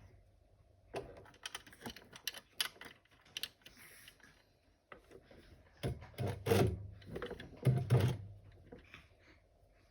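Domestic sewing machine stitching in short, uneven runs, its needle mechanism clicking. The clicks grow louder and denser about six to eight seconds in.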